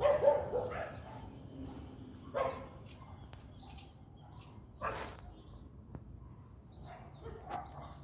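A dog barking off and on, four short barks spaced two to three seconds apart, the first the loudest.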